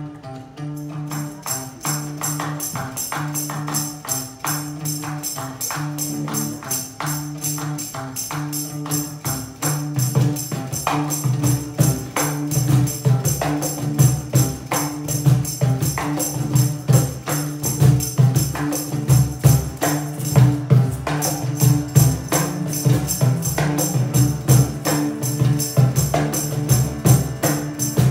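Kirtan band music without singing: guitars keep a repeating low riff under an even, rhythmic jingling of hand percussion, and drum strokes join and build louder about ten seconds in.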